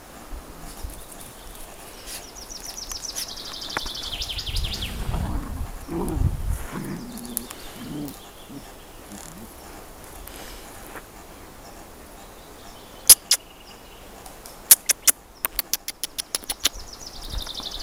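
A songbird sings a fast, high descending trill, twice. A few low grunts come from golden retriever puppies wrestling, and near the end a quick run of sharp clicks is the loudest sound.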